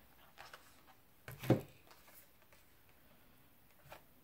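Oracle cards being handled and drawn from the deck: a few soft card ticks and taps, with one louder knock about a second and a half in.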